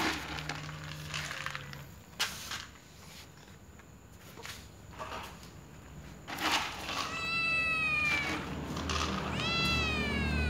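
A domestic cat meows twice in the second half, each a long call that falls in pitch. Before the meows there are scattered clicks and rustles.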